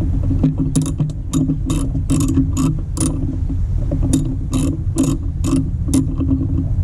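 Socket ratchet clicking in quick, uneven strokes, about two to three clicks a second, as it backs out the Mustang's coil pack hold-down bolts. A steady low hum runs underneath.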